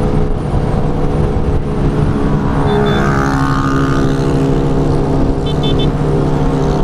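Honda CB650R's inline-four engine pulling hard as the motorcycle accelerates at highway speed, its pitch rising, with wind rushing past.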